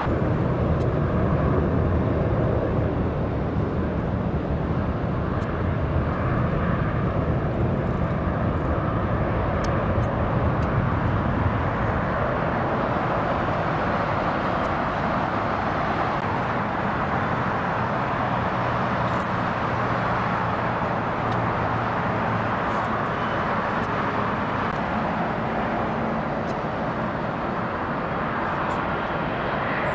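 Jet airliners taxiing, their engines running steadily: a continuous, even rush of jet engine noise with no distinct events.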